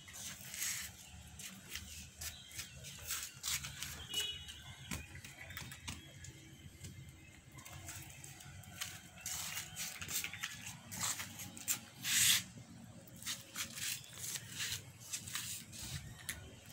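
Irregular rustling of leaves and stems with light scratches and scattered clicks as a kitten bats and paws at a plant, one louder rustle about twelve seconds in.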